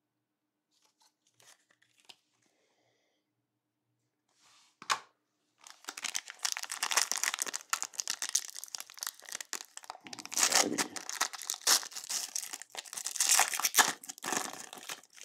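A foil trading-card pack wrapper being torn open and crinkled by hand. After a near-silent start and one short crackle about five seconds in, it runs as a dense stretch of crackling tearing and crinkling.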